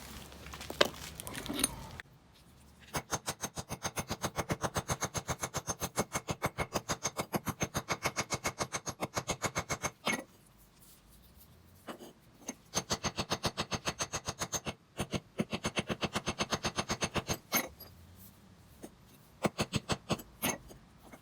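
Quick, even strokes of a hand tool on a fresh metal casting, about four a second, with a metallic ring. They come in three runs with short pauses between.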